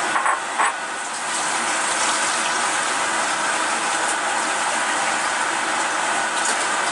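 A steady rushing hiss, with two light knocks just after the start.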